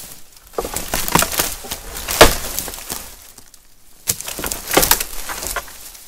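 Dry dead wood cracking and splintering as it is broken off a fallen tree, in two bouts of irregular cracks with a pause between; the sharpest single crack comes about two seconds in.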